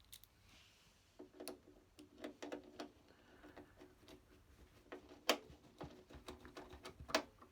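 A Sony CDP-991 CD player's mechanism clicking and whirring as it is tested after reassembly. There is a run of small mechanical clicks and, from about a second in, a steady low motor hum, with two sharper clicks, one near five seconds and one near the end.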